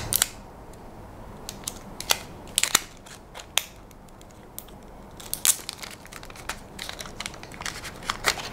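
Scattered small clicks and crinkling of a Nubia Alpha smartwatch being handled: protective plastic film peeled off and the band worked on to shorten it. The clicks come more closely together in the second half.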